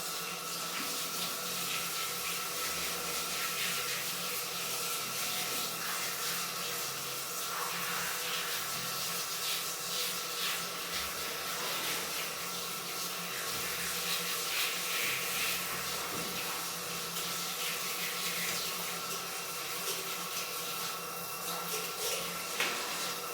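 Water running steadily from a tap, with faint brief splashing and rubbing as a cat is washed under it.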